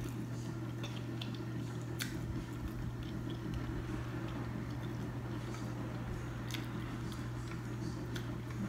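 Soft mouth sounds of water being sipped through a straw and swallowed, with a few faint clicks, over a steady low hum.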